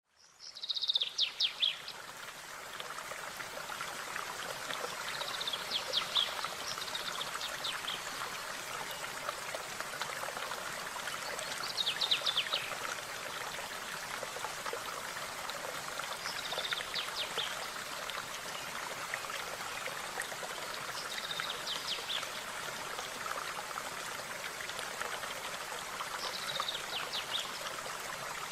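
Running stream babbling steadily, with a songbird repeating a short, quickly descending trilled phrase about every five seconds.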